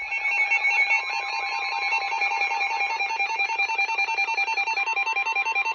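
Emergency Alert System attention tone, the electronic alert signal that opens an EAS message, here a tornado warning. It is a loud, continuous tone with two pitches alternating several times a second over a fast, even pulse.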